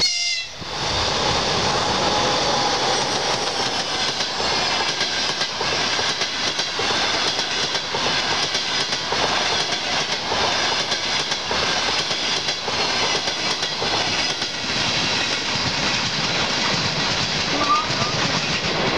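Passenger train passing at speed, its wheels clattering steadily over the rail joints, with a high whine that falls in pitch over the first few seconds.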